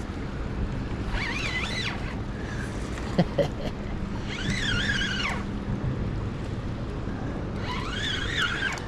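Steady low hum and rumble of a boat on the water with wind on the microphone, crossed three times by a high wavering whine about a second long, a few seconds apart.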